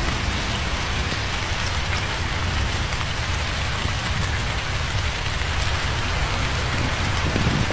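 Steady heavy rain: a continuous even hiss with scattered sharper drop ticks and a deep steady rumble underneath.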